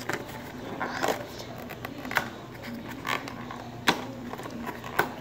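Trading-card booster pack wrapper crinkling and tearing as it is worked open by hand: a scatter of sharp crackles and snaps, the loudest about four seconds in.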